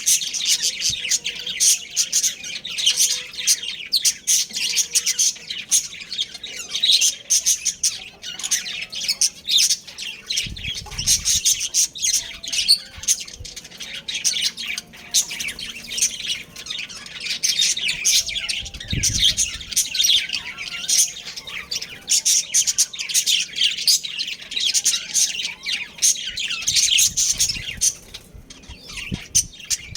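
Budgerigars chirping and twittering without a break, a dense stream of quick high chirps, with a short lull near the end.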